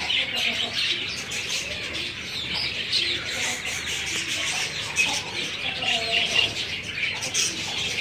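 Caged budgerigars and young chicks chirping and chattering together in a dense, continuous high twitter, with a few short lower calls mixed in.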